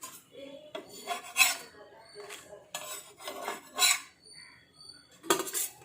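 Metal utensil scraping on a dosa pan in a series of short scraping strokes.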